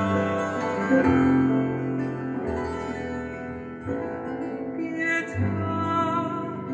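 Instrumental interlude of an Italian Baroque-style song: plucked strings over long held bass notes, with no voice.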